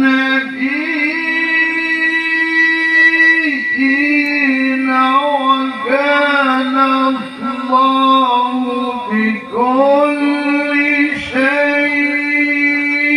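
Man reciting the Quran in the melodic tilawah style into a microphone, holding long notes and ornamenting them with wavering melismatic turns. He pauses briefly for breath several times.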